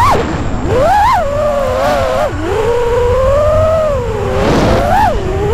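FPV freestyle quadcopter's brushless motors and propellers whining, the pitch rising and falling with the throttle. There are sharp climbs about a second in and again near the end, with a longer, steadier stretch in the middle.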